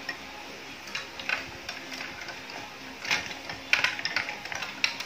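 Large plastic interlocking toy blocks clicking and clattering as a child's hand presses them onto a build and handles loose pieces on a wooden tabletop. Scattered clicks, coming thicker from about three seconds in.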